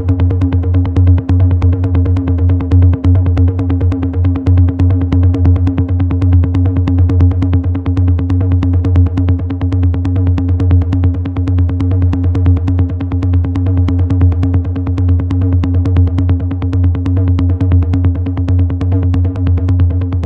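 Techno pattern from a Roland TR-8 drum machine: quick, evenly spaced ticks over a steady low bass tone, running without a break.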